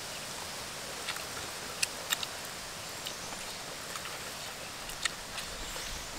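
Eating by hand: a few scattered sharp clicks and smacks of chewing and of fingers picking at rice and chicken on a banana leaf, over a steady outdoor hiss.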